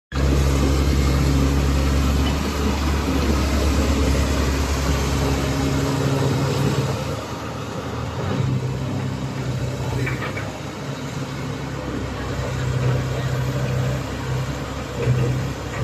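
Diesel engine of a Komatsu PC130 excavator running steadily, its note shifting about six seconds in and changing again several times after that.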